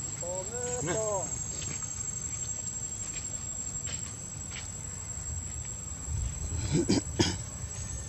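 Macaque squealing in a short run of high, rising-and-falling cries about a second in, over a steady high insect whine. Two brief, louder noises come near the end.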